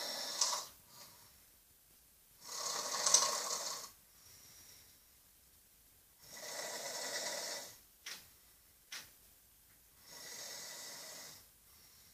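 Loud snoring: one noisy snore about every three and a half seconds, the first fading out just after the start, with two short clicks in the gap before the last snore.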